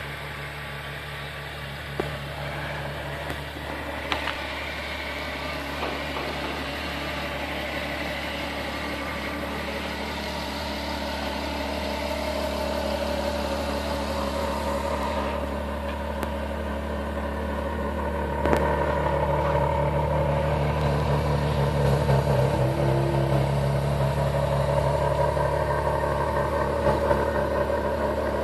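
A vehicle engine idling steadily, getting louder about 18 seconds in, with a few light clicks early on.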